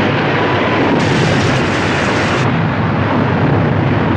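Film sound effect of a giant tsunami wave crashing over an ocean liner: a loud, steady rush of surging water with a deep rumble underneath.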